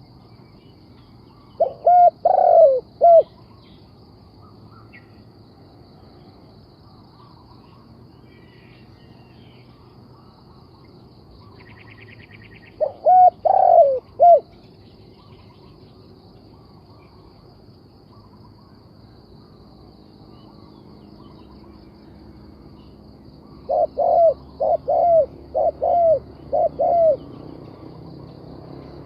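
Spotted dove cooing in three phrases about ten seconds apart: two short phrases of about four coos each, then a longer run of about seven coos near the end. A faint steady insect drone runs underneath.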